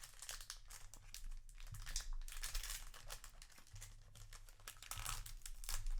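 Plastic foil wrapper of a trading card booster pack crinkling and tearing as it is handled and pulled open, in a rapid irregular crackle.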